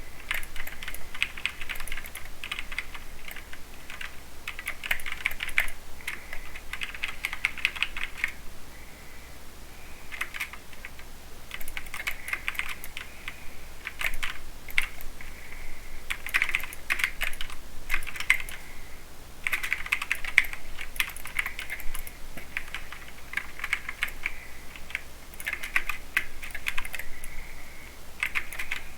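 Mechanical keyboard with Cherry MX Silver linear speed switches being typed on: fast runs of keystroke clatter in bursts, with short pauses between them.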